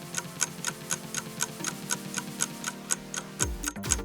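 Clock-tick countdown sound effect ticking evenly, about four ticks a second, over a faint low music bed, with low falling notes coming in near the end.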